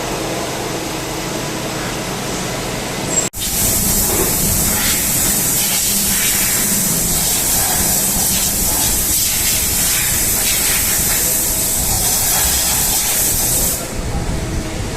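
A CNC turning machine running with a steady hum. After a sudden break about three seconds in, a loud, steady spraying hiss starts and runs for about ten seconds, then cuts off shortly before the end, leaving the machine hum.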